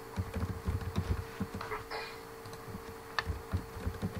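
Typing on a computer keyboard: a run of quick, irregular keystroke clicks over a faint steady hum.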